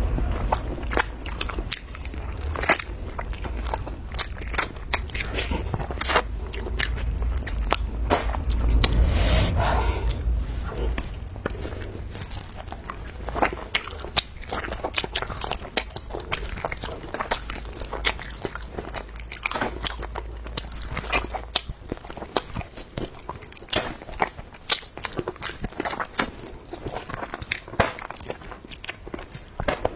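Close-up eating sounds: biting, chewing and wet mouth smacks on pork trotter, a dense run of short clicks and crunches. A low hum underneath stops about two-thirds of the way through.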